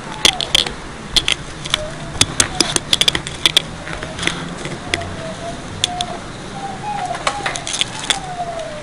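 Handling noise picked up by a cheap mini DV camera's built-in microphone: a run of sharp clicks and knocks, densest in the first few seconds and then scattered, over a steady hiss, with a faint wavering tone.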